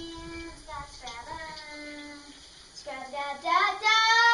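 A girl singing long, held wordless notes; they swell and waver and are loudest near the end.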